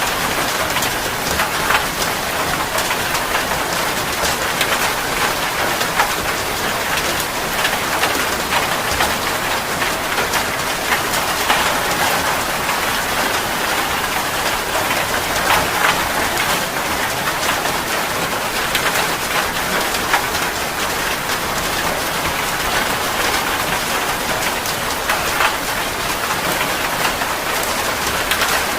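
Steady heavy rain falling on a surface, a continuous hiss dense with the patter of individual drops.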